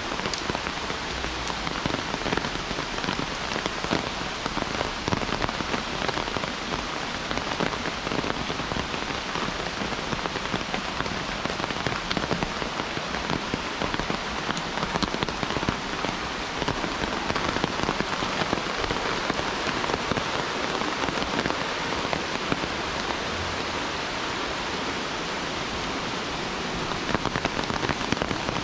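Steady heavy rain: an even hiss of falling water dotted with many individual drop hits, unchanging throughout.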